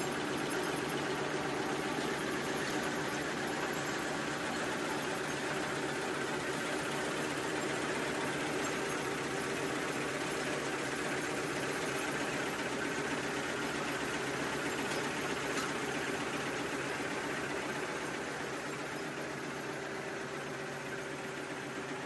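Four-line 1/6-fold napkin tissue machine running steadily: a continuous mechanical rattle with a steady hum under it, easing off slightly near the end.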